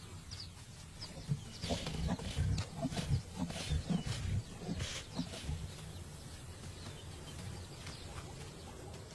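Lions and a Cape buffalo at a kill: low, irregular grunts and growls, loudest in the first half, with faint bird chirps above.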